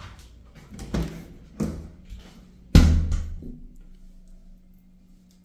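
A few dull thumps, about a second in, half a second later and a little before three seconds, the last the loudest, each with a ringing tail, over a steady low hum.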